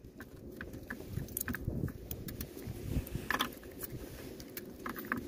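Irregular soft clicks and rustles of a hand working a hook out of a small, freshly caught mackerel and handling the fish.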